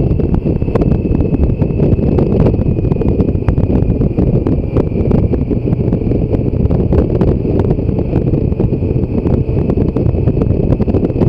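Wind buffeting the microphone of a BMW K1600 GTL touring motorcycle at cruising speed: a steady, loud low rumble with crackle, mixed with the bike's running noise, and a faint steady high whine above it.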